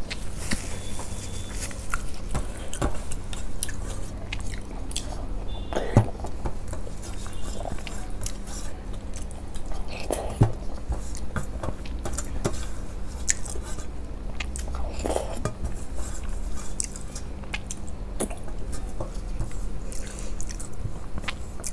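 Close-up eating sounds: a person chewing and smacking rice mixed with curd, sucking food off her fingers, with many short wet clicks and smacks, and fingers scraping a steel plate.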